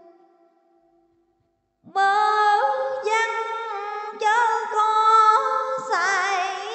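A woman's voice chanting Vietnamese religious verse in drawn-out, melismatic style. A held note fades at the start. After about a second and a half of silence, the voice comes back in about two seconds in with long sustained vowels that step up and down in pitch, and wavers with vibrato near the end.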